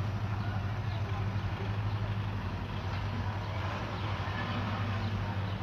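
Motor vehicle engine running steadily with a constant low hum.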